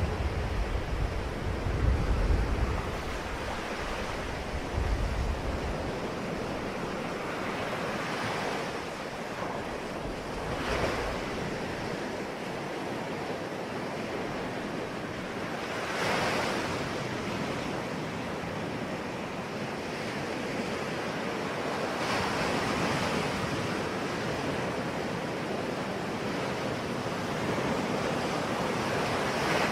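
Ocean waves breaking on a shore: a steady wash of surf that swells as a wave breaks about every six seconds. There is a low rumble in the first few seconds.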